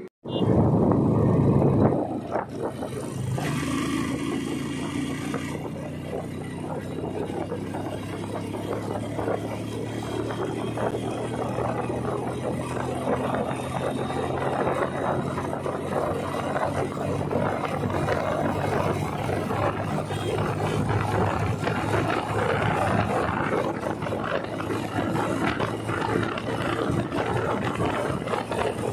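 Motorcycle riding at highway speed: the engine runs steadily under heavy wind and road rush on the microphone. A loud rush of wind comes in the first couple of seconds.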